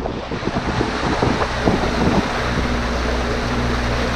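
Boat engine running steadily under way, a low drone under the rush of water and wind on the microphone. The noise is uneven for the first couple of seconds, then settles.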